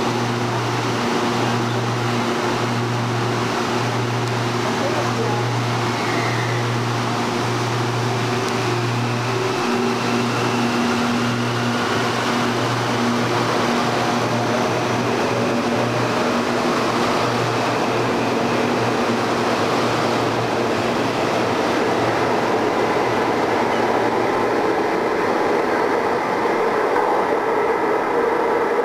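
İZBAN electric commuter train standing at the platform with a steady electrical hum, then pulling away: the hum fades as the rumble of the wheels and a faint rising whine from the motors build up while it accelerates out.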